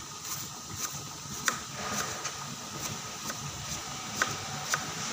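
Sliced Sumenep shallots deep-frying in oil in a large wok over a gas flame: a steady sizzle broken by scattered sharp pops, three of them louder than the rest.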